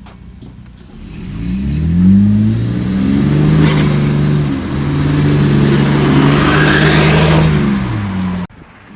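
Turbocharged car engine revving and pulling hard: the pitch climbs about a second in, dips briefly around four and a half seconds, holds high and steady, then falls away near the end before the sound cuts off abruptly.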